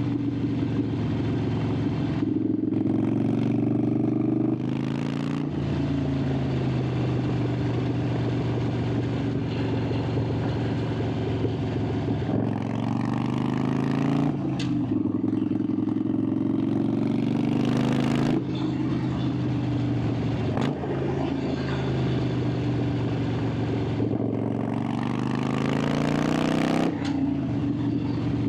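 Harley-Davidson Sportster 883's air-cooled V-twin exhaust under way, its pitch climbing under throttle and then dropping back, several times over: about a second after the start, around 12 s, 14 s, 18 s, 21 s and 27 s.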